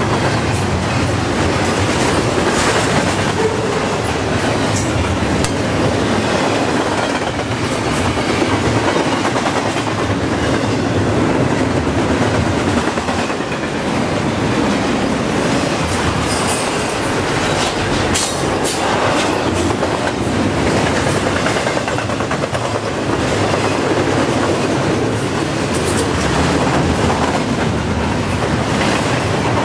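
Double-stack intermodal well cars of a freight train rolling past at speed: a loud, steady rumble of steel wheels on rail, with many short, sharp clicks and clanks.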